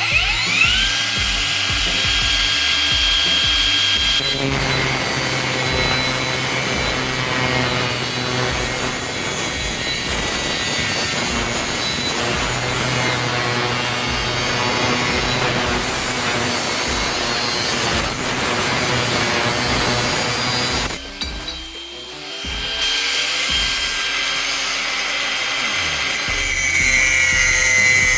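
Cordless angle grinder (INGCO 20V) spinning up with a rising whine, then cutting through a steel angle bar with a harsh, steady grinding noise. About twenty seconds in, the cutting stops briefly and the motor whines back up before it cuts again.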